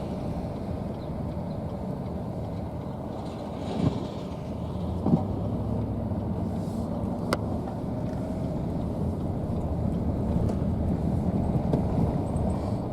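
Car driving, steady engine and road noise heard from inside the cabin, with a couple of brief knocks near the middle.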